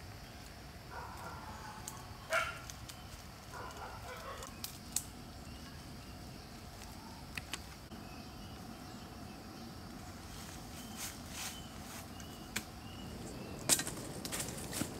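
Dry leaf litter crackling and rustling under someone working among pineapple plants, with scattered sharp snaps, the loudest near the end. Two short high calls sound in the first few seconds.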